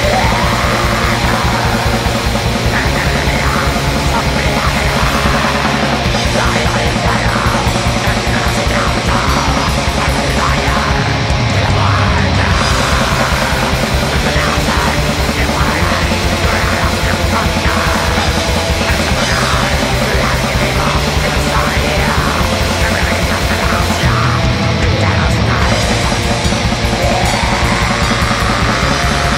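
Black metal music: distorted guitars over fast, dense drumming, playing continuously.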